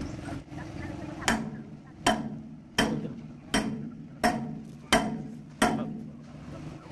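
Seven evenly paced metal-on-metal strikes, about one every 0.7 s, each ringing briefly. This is typical of hammer blows during work on a concrete mixer drum's shaft and bearing.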